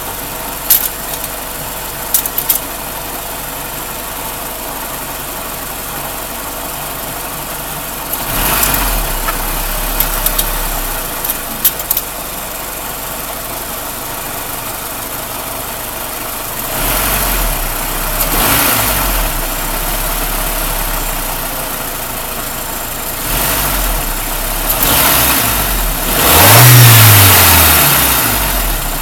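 Warmed-up car engine idling during a vacuum test, with a vacuum gauge teed into the intake. It is revved briefly about eight seconds in and again around seventeen seconds, then revved longest and loudest near the end, pitch rising and falling. A few sharp clicks come in the first twelve seconds.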